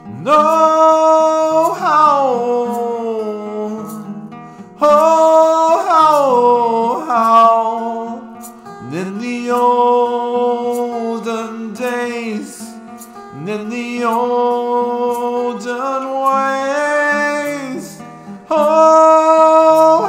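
A man singing long held notes that swoop up into each phrase and slide down at the end, over a strummed acoustic guitar.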